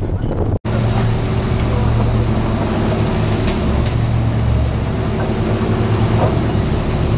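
Boat engine running steadily, a low even hum, broken by a brief dropout under a second in.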